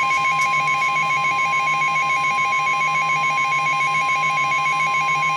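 Emergency Alert System attention signal for a tornado warning: a loud, steady high alert tone with a second tone warbling rapidly alongside it, held without a break.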